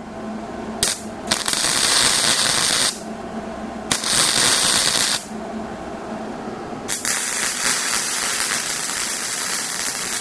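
Welding arc crackling and sizzling in three bursts on a steel tube frame: about two seconds, then about a second, then a longer run that goes on past the end. A steady low hum sits underneath.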